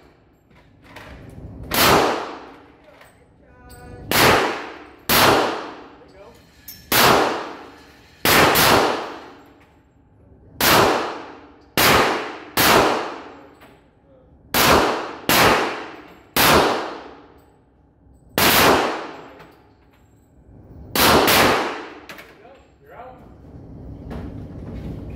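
A gun being fired repeatedly: about fourteen sharp shots at irregular intervals of one to two seconds, including a quick pair about eight seconds in. Each shot is followed by a short metallic ringing tail.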